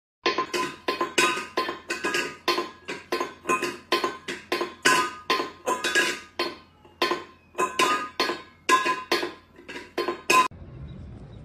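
A stainless steel pet bowl clanking and ringing on a tile floor as a cat knocks it about, about three clanks a second, stopping shortly before the end.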